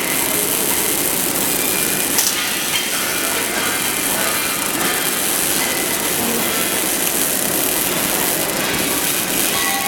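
Welding arc crackling and sizzling steadily while a 3G (vertical-position) weld is run, with a small sharp crack about two seconds in.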